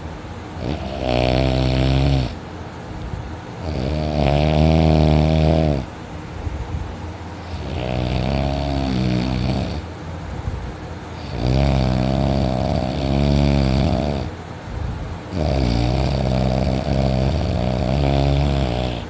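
A person snoring heavily in deep sleep while lying on their back: five loud, rattling snores, one every three to four seconds, with quieter breaths between them.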